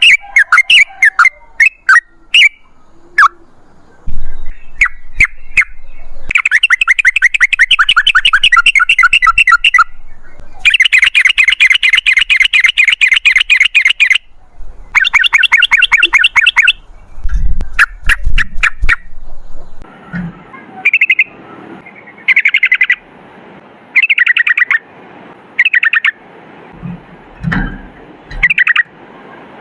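Yellow-vented bulbul song: scattered short chirps, then long, fast rolling trills of rapidly repeated notes lasting several seconds each in the middle, then separate short chattering phrases toward the end.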